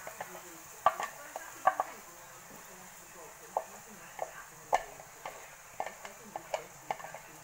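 Chopped onion, garlic and chilli sizzling in hot oil in a frying pan, with a steady hiss under irregular knocks and scrapes of a wooden spoon as the food is tipped in and stirred.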